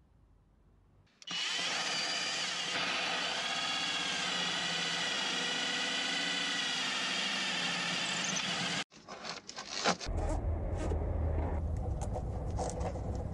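Electric drill with a hole saw cutting through a van's metal floor: a steady motor whine whose pitch wavers slightly under load, stopping suddenly about nine seconds in. It is followed by irregular knocks and rubbing.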